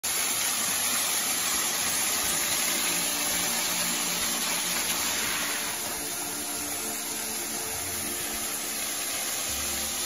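Steady rushing of a 25 m tiered waterfall, water pouring over rock into a pool, an even unbroken hiss.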